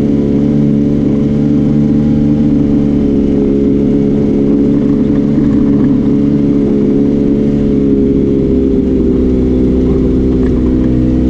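Arctic Cat Wildcat Trail 700 side-by-side engine running steadily under way. Its pitch sags a little about eight seconds in and picks up again near the end.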